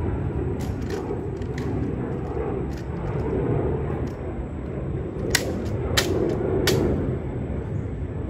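Three sharp clacks about two-thirds of a second apart as a guard's rifle is handled during a ceremonial rifle inspection, over a steady outdoor rumble. Fainter ticks and taps of the rifle come earlier.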